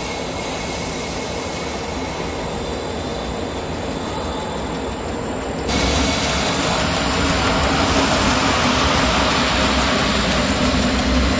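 Running noise inside a locomotive cab as the train moves: a steady rumble and rush. About halfway through it turns suddenly louder and hissier.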